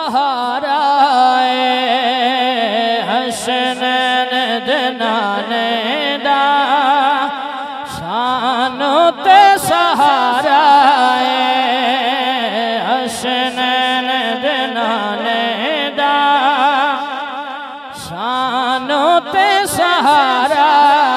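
A man singing a Punjabi naat solo, unaccompanied by instruments, with a wavering, heavily ornamented melody and short breaks about 8 and 18 seconds in. He sings over a steady low drone.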